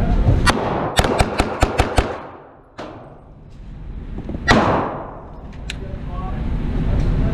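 9mm AR-9 pistol caliber carbine firing a fast string of six shots at about five a second, the six-shot pattern of a Bill Drill, echoing in an indoor range. A few more single shots follow, one with a long reverberating tail.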